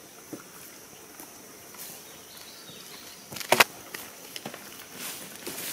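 Footsteps in grass and dry wood being handled, with one sharp double crack of dry sticks about three and a half seconds in and a few lighter ticks around it.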